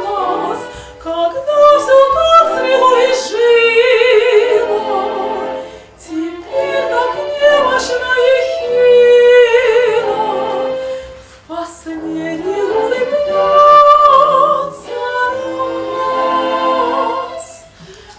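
A woman's voice singing in classical operatic style, with wide vibrato on held notes. The phrases break off briefly about six and eleven seconds in.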